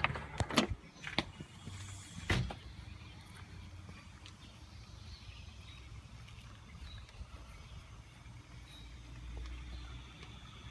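A few knocks and clicks in the first couple of seconds, the loudest about two seconds in, then the low steady hum of a cheap inflatable yard decoration's blower fan running as it starts to fill.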